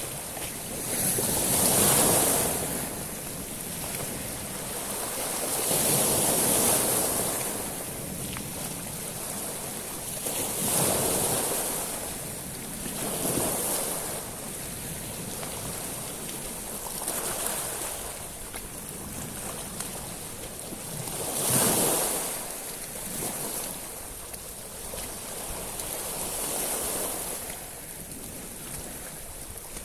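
Sea waves washing onto a beach of small stones (shingle): seven surges that swell and ease at uneven gaps of a few seconds, each bringing a high hiss as the water runs through the pebbles.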